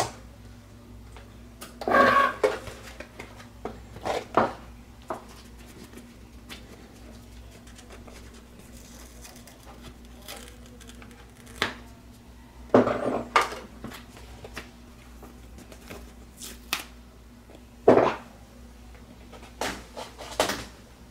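A plastic Cricut cutting mat with a cut gasket sheet on it being handled: scattered rustles, clacks and taps, the loudest about two, thirteen and eighteen seconds in, over a faint steady hum.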